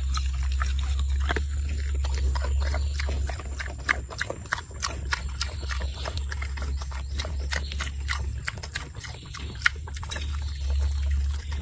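Pigs moving about and feeding: many short, irregular clicks and knocks over a steady low rumble.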